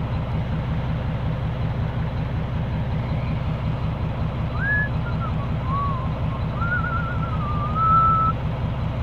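Truck engine idling steadily, heard from inside the cab. From about halfway in, a man whistles a short, wavering tune over it.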